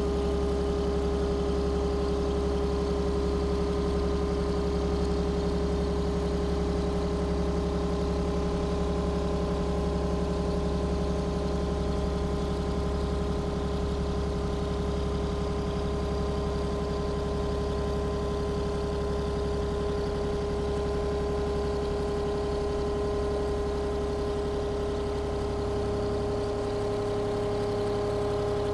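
Eagle ETB90 tire baler's power unit running steadily: an engine-driven hydraulic pump with a constant hum and whine over a low rumble, the pitch holding steady throughout.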